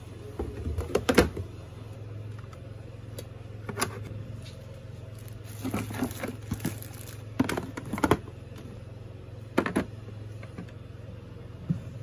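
Plastic toiletry bottles and jars being set down and knocking against each other in a drawer: scattered knocks and short clatters with gaps between them, over a steady low hum.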